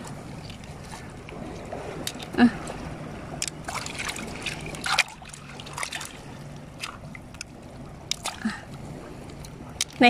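Fingers raking through wet mud and shallow seawater over a bed of clams: small splashes and sloshing, with scattered short clicks as the shells knock together. A faint low hum runs underneath for about the first half.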